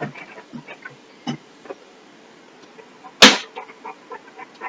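A flipped bottle hitting a hard surface once with a sharp thud about three seconds in, amid a few faint small knocks.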